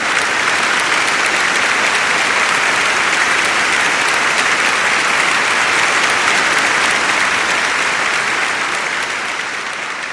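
Audience applauding steadily, slowly fading away near the end.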